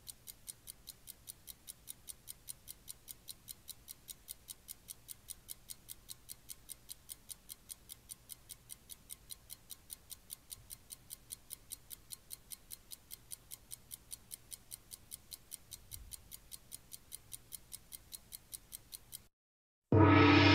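Steady clock-like ticking, about four sharp ticks a second, over a faint low hum. It cuts off near the end, and after a moment of silence music comes in loudly.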